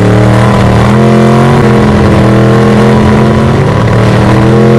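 Rat rod's open-header V8 revved hard and held at high rpm during a burnout, the rear tyre spinning against the pavement. The revs climb at the start, then hold high and steady with a couple of slight dips.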